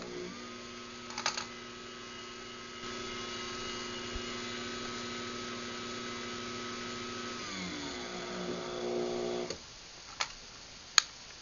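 Craftsman garage door opener run by remote: a click, then the motor runs steadily with a hum and a higher whine. About seven and a half seconds in it slows, and it stops about two seconds later. Sharp clicks come just after the start and after it stops.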